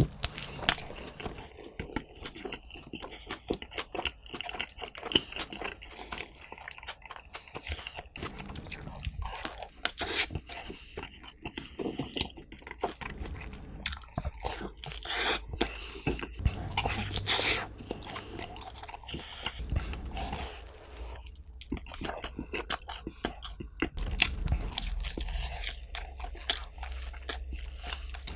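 Close-miked chewing and biting of pizza, with many irregular crunches of crust throughout.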